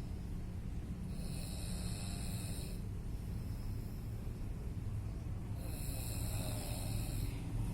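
A sleeping person snoring: two long rasping snore breaths about four seconds apart, over a steady low rumble.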